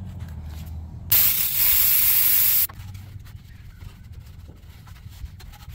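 Aerosol can of brake cleaner sprayed in one steady hiss lasting about a second and a half, starting about a second in and cutting off sharply.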